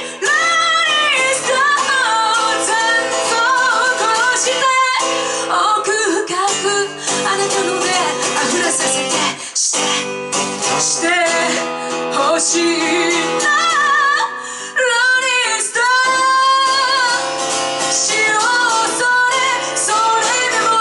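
Live rock band playing a song: a woman singing with vibrato over guitar, loud throughout, with two brief breaks in the sound about five and ten seconds in.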